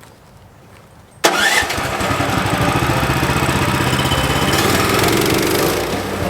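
Portable sawmill's engine comes in suddenly about a second in and then runs steadily at speed with a fast, even firing beat.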